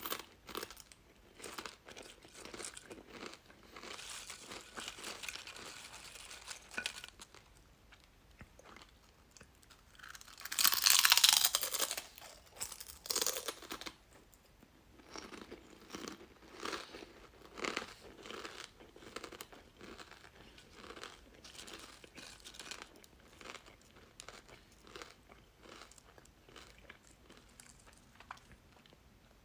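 Someone eating chips: repeated crisp crunches and chewing. There is a louder burst of noise about a third of the way through.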